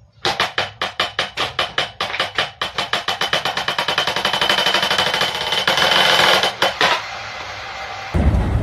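A rapid run of sharp mechanical knocks, several a second and quickening into a near-continuous rattle before stopping abruptly. Near the end a loud low rumble starts.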